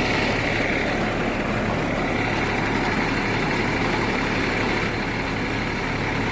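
Motor-driven machine running steadily: a constant low hum under an even, noisy rush that does not change.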